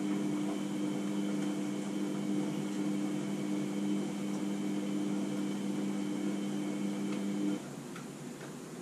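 Steady electrical appliance hum, a low drone with a few fixed tones, that cuts off suddenly about seven and a half seconds in.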